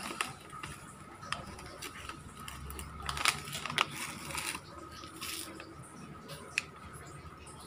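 Crinkling of a plastic snack packet and light clicks of a spoon while crushed graham crackers are scooped out. The rustling comes in short bursts, the loudest about three and five seconds in, over a faint steady high hum.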